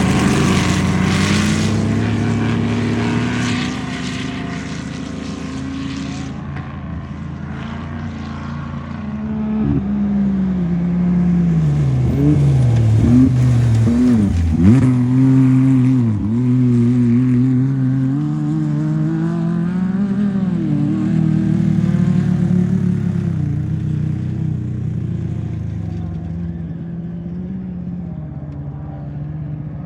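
Off-road race vehicle engine running and revving, its pitch rising and falling with several sharp dips and recoveries about midway as the throttle is let off and reapplied. A rushing noise sits over the first few seconds.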